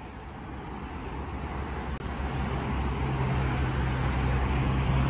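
VL80S AC electric freight locomotive approaching, its steady low hum and running rumble growing louder.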